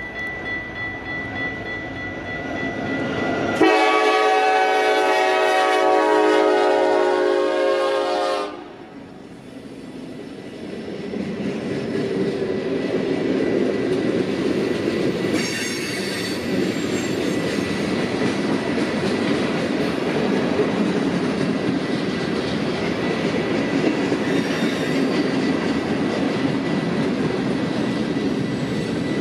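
Diesel freight train sounding one long horn blast of about five seconds, a few seconds in, then the train running past with a steady clickety-clack of wheels over the rail joints.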